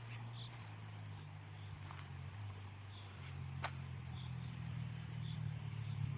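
Steady wind rumble and hiss on the microphone, with a single sharp click a little past halfway and a few faint high chirps.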